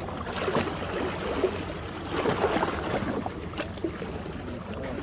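Small sea waves washing in and gurgling among the rocks of a breakwater, swelling and easing irregularly.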